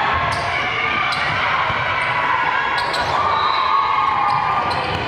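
Sounds of a girls' volleyball match: sharp taps of the ball being struck, over players' and spectators' raised voices.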